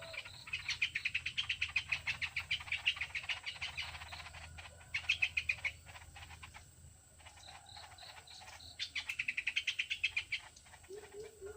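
A songbird giving rapid chattering runs of short high notes, about ten a second, in three runs: a long one at the start, a short one about five seconds in, and another about nine seconds in.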